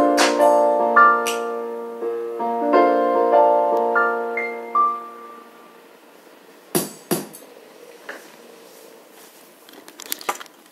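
Piano chords played and held, several notes layered, ringing for about five seconds and then fading away. Two sharp clicks come about seven seconds in, and a few faint clicks near the end.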